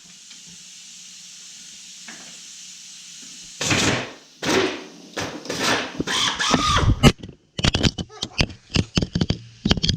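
Pneumatic impact wrench hammering on the cylinder head bolts of a snowmobile two-stroke engine in a string of trigger pulls, several half-second bursts and then many short rapid ones, without breaking the bolts loose. A steady low hum runs beneath during the first few seconds.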